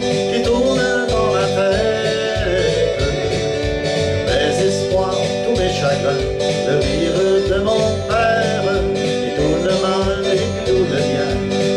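Country-style song with guitar accompaniment and a man's singing voice, played at a steady level.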